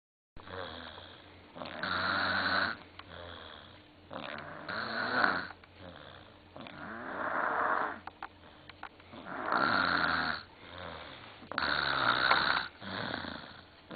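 A three-year-old child snoring in sleep, mouth open: about five loud, rasping snores of roughly a second each, at a steady rhythm, with quieter breathing between them.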